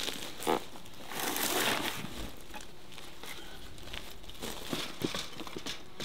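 Footsteps crunching and rustling on bark mulch while a hive box is carried. There is a single knock about half a second in and a longer scuffing rustle from about one to two seconds in.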